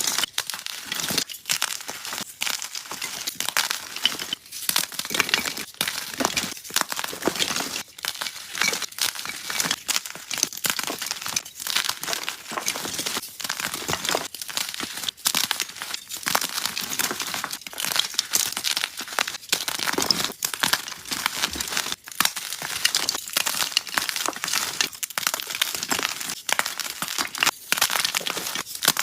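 Soft gym chalk being crushed, crumbling into powder: a continuous dense crackle of many small crunches.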